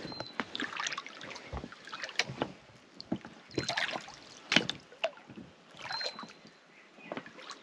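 Small dinghy being rowed, oars dipping and pulling through the water in about four even strokes, with knocks and a short squeak from the oarlocks on each stroke.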